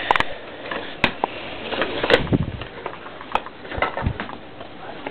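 Handling noise: scattered sharp clicks and light knocks with a soft rustle, loudest about two seconds in.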